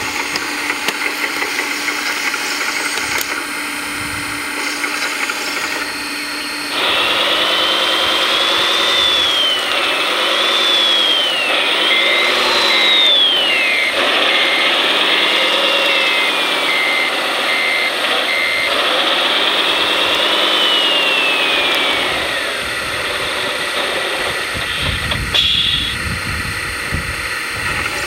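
Radio-controlled scale construction machines working. A steady motor hum gives way, about seven seconds in, to a louder motor whine that rises and falls in pitch over and over as the model is driven. In the middle comes a run of short, evenly spaced beeps like a reversing alarm.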